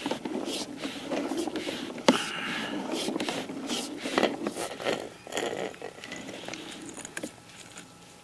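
Sewer inspection camera's push cable being handled at the cleanout, giving irregular scrapes and sharp clicks. The noises are busiest in the first five seconds and thin out toward the end.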